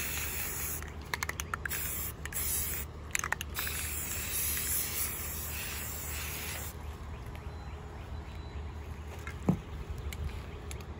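Rust-Oleum aerosol spray paint can hissing as army-green paint is sprayed onto a kayak hull. The spray breaks off twice, briefly, with a few quick clicks in the pauses, and stops about seven seconds in.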